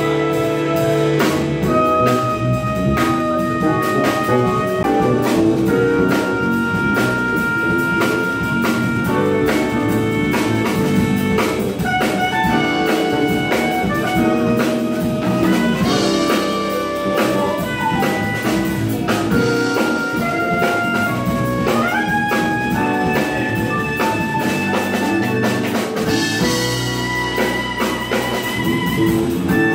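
Live jazz band playing: saxophone carrying a melody of long held notes and quicker runs, over electric bass, a drum kit with steady cymbal strokes, and keyboard.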